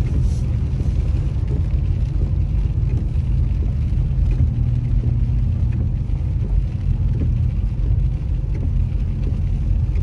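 Car cabin road noise while driving on a wet road: a steady low rumble of engine and tyres.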